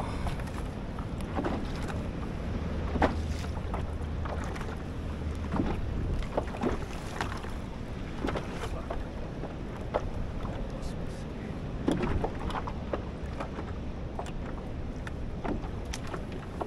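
Wind buffeting the microphone and water lapping on a kayak at sea, with scattered light knocks and clicks. The wind rumble is heaviest in the first few seconds.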